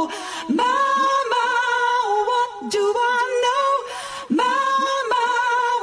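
A woman's recorded singing voice holding long notes with vibrato, stepping between pitches, with little accompaniment.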